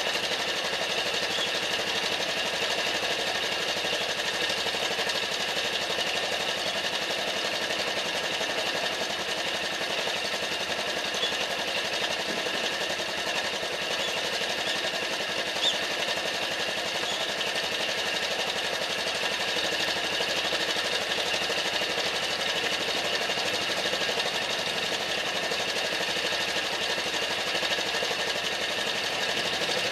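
Honda Super Cub's small air-cooled four-stroke single-cylinder engine running steadily at idle, with a fast even patter.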